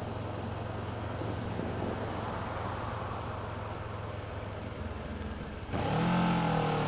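Kawasaki ER-6f parallel-twin motorcycle engine running at road speed under steady wind and road noise. About six seconds in, the engine note gets suddenly louder.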